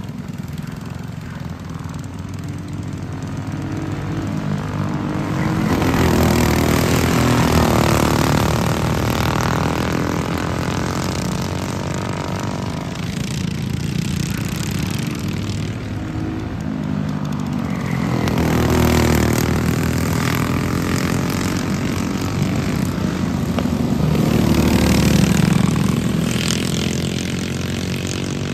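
Several racing go-kart engines buzzing as karts lap the track. The sound swells loudest as karts pass close, about six, eighteen and twenty-five seconds in, and each time the pitch rises and then falls as they go by and fade.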